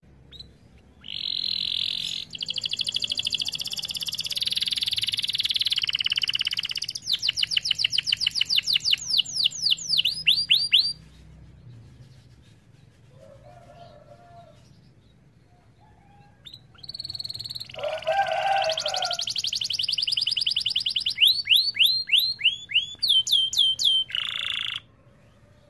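Domestic canary singing: two long bouts of song made of sustained buzzy notes, fast trills and rapid rolling repeated notes, with a quieter pause of several seconds between them. The song cuts off abruptly near the end.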